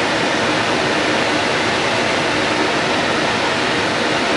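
Steady, even rush of blowing air that does not change in level.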